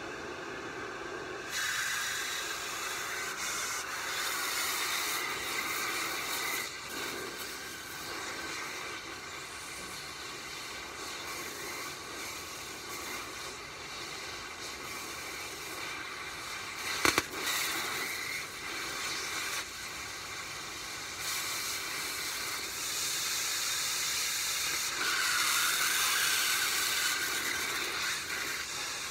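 Oxy-fuel cutting torch flame hissing steadily while it preheats the steel forklift fork for cutting. The hiss grows louder near the end, and there are two sharp clicks about seventeen seconds in.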